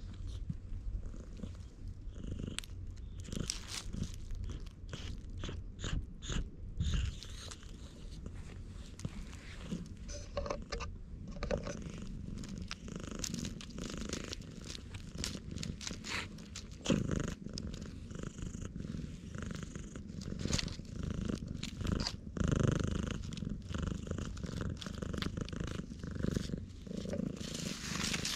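Black stray cat purring loudly and steadily while it is stroked, close up, with frequent rustles and clicks close by.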